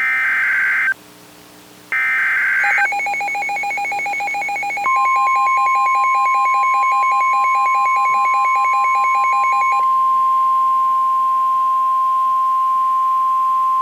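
Emergency Alert System SAME header: two harsh one-second bursts of digital data tones about a second apart. A rapid pulsing beep follows, and about five seconds in the steady 1050-hertz NOAA Weather Radio warning alarm tone starts and holds to the end, announcing an incoming warning.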